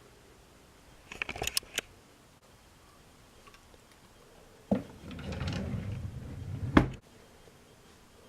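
Quiet room with a few sharp clicks about a second in, then a couple of seconds of rustling handling noise that ends on a sharp click.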